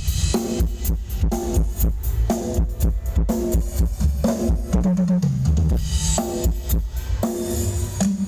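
Thai ramwong dance-band music played loud through a large stage PA system during a sound check. A drum kit with heavy bass drum and snare keeps a steady beat under pitched instruments playing the tune.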